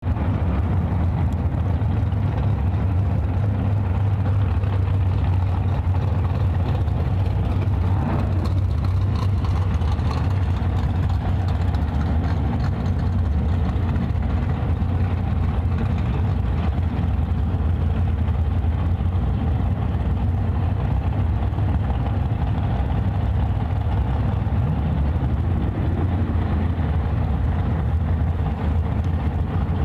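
Drag-race Chevrolet truck engine idling steadily with a low rumble, with a brief swell about eight seconds in.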